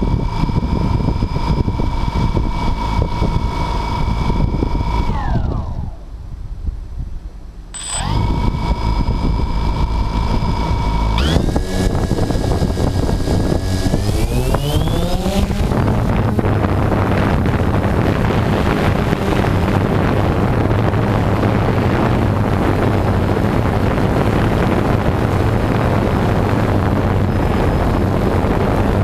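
DJI Phantom 2 quadcopter's motors and propellers spinning at idle, winding down and stopping about five seconds in. About three seconds later they start again and rise in pitch in two steps as the throttle comes up for takeoff. Then comes a steady propeller hum with heavy wind noise on the onboard camera's microphone.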